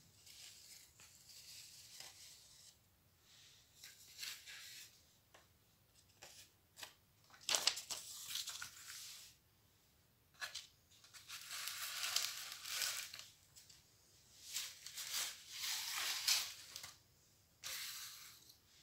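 Cut cardboard pieces being handled and slid over a cardboard sheet: papery rustling and scraping in bursts of a second or two, with a few light taps between them.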